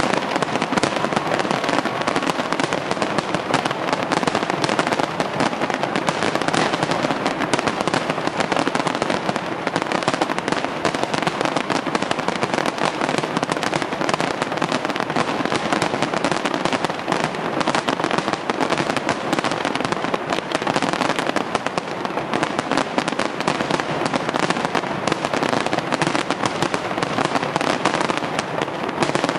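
Fireworks display going off in a dense, unbroken barrage of bangs and crackles.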